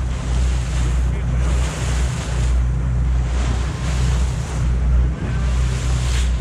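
Fishing boat under way: its engine keeps up a steady low hum under wind buffeting the microphone and the rush of sea water.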